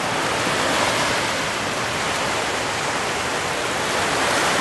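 Steady rushing of small waves washing onto a sandy beach.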